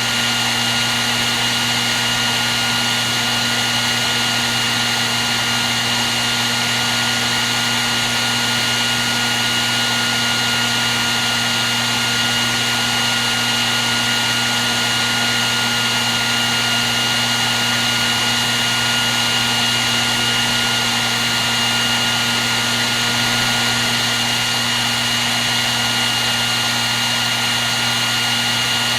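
Hair dryer running continuously at a steady setting: an even blowing hiss with a constant motor hum and a high, steady whine.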